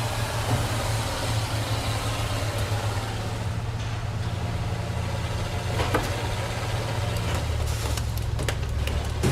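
Vehicle engine idling steadily, with a single sharp knock about six seconds in and a quick run of clicks and knocks near the end.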